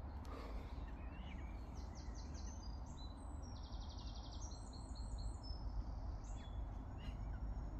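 Small birds singing: chirps and a fast, high trill about three to five seconds in, over a steady low rumble.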